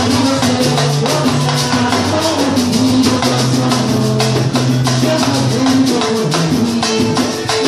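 Batucada percussion ensemble playing live: a dense, steady samba rhythm of drums and shakers, with sustained pitched notes held over it.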